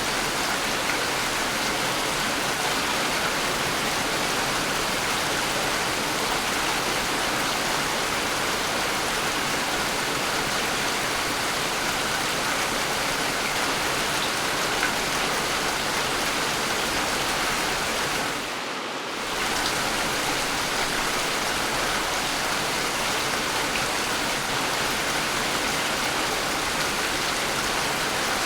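Steady rainfall, an even hiss of rain. It dips briefly for about a second roughly two-thirds of the way through.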